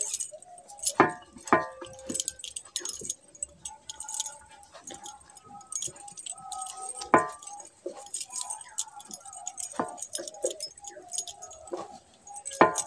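Bangles on the milker's wrists clinking and jingling irregularly as her hands squeeze the cow's teats during hand milking.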